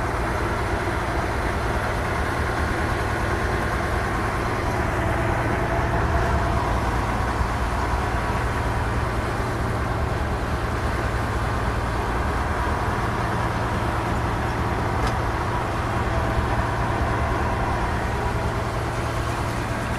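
Fishing boat's engine running steadily, a constant low hum with a noisy wash over it.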